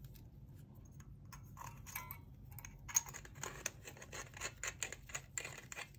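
Faint, irregular light clicks and taps of small objects being handled, sparse at first and coming thick and fast in the second half, with one sharper click about three seconds in.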